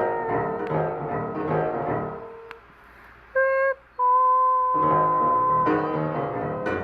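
Instrumental music with keyboard-like tones. About two seconds in it drops away to near silence, broken by a short pitched beep and then a held tone, and the full texture comes back shortly before the end.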